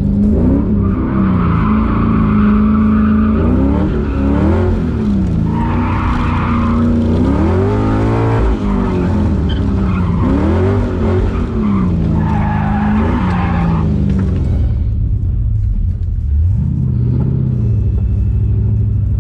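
LS V8-swapped Mazda Miata NB drifting, heard from inside the cabin: the V8's revs rise and fall over and over, with three long bursts of tyre squeal. Near the end the revs drop off, then start climbing again.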